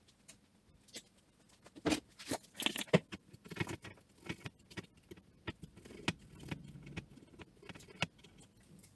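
A cloth rubbing over a small circuit board as it is wiped clean of solder-paste residue with isopropyl alcohol, with irregular light clicks and knocks from the handled aluminium chassis plate, starting about two seconds in.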